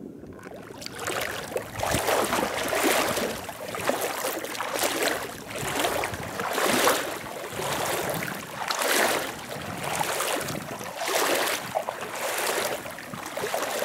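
Boots wading through a shallow tidal creek, each stride sloshing and splashing through the water, about one a second.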